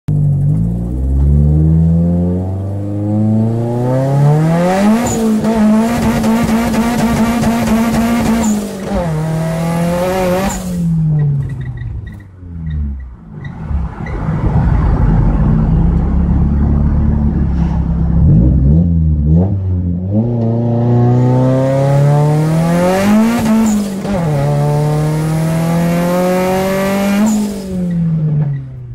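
Turbocharged Nissan SR20DET four-cylinder in an S13, at 17 psi boost, accelerating hard in two full-throttle pulls, heard from inside the cabin. The revs climb, hold steady near the top, then drop at an upshift and climb again, with the tyres spinning for grip. Between the pulls, about ten to twenty seconds in, the engine runs lightly over road rumble.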